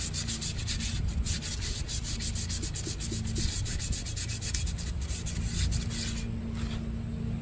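Fine sandpaper rubbed by hand in quick back-and-forth strokes over a steel wheel rim's bead seat, smoothing off rust and rough spots so the tire bead will seal. The scratching stops near the end.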